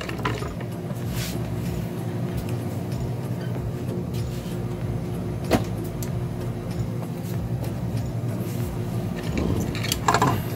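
A steady electrical hum from running bench equipment, with a few light clicks and handling noises as the circuit board is moved about.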